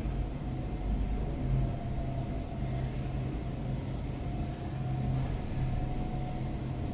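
Lincoln elevator car riding upward: a steady low rumble of the moving car with a faint constant hum.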